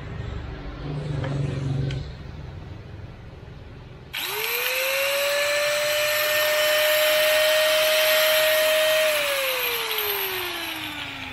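Dongcheng ASM05-100 angle grinder switched on about four seconds in, its motor whining up to speed and running steadily, then switched off near the end and winding down in a falling whine: a test run after its gears have been replaced. A few handling clicks come before it.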